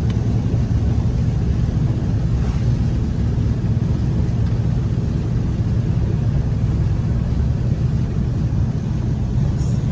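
Steady low drone of a car's engine and tyres on a wet road, heard from inside the cabin.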